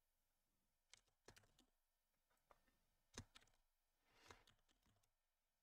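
Faint, sparse computer keyboard keystrokes: a few scattered taps and clicks.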